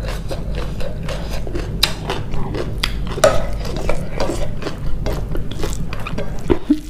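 Cutlery clinking and scraping against a dish as food is stirred and scooped, many small sharp clicks over a steady low hum.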